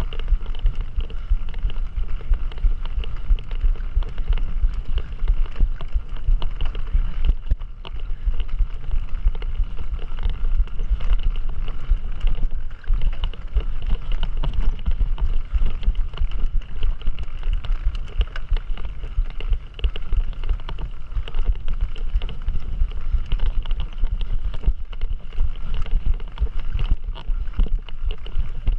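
Wind buffeting the microphone of a camera riding along on a moving mountain bike, a steady low rumble with constant small clicks and rattles from the bike over rough ground.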